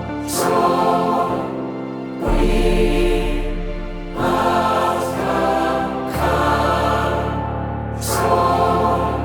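Music: sustained choir-like chords in phrases about two seconds long, with deep bass notes coming in partway through.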